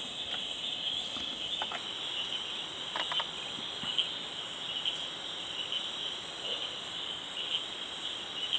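Crickets and other night insects calling steadily in a continuous high shrill chorus, with a few faint knocks about one and a half and three seconds in.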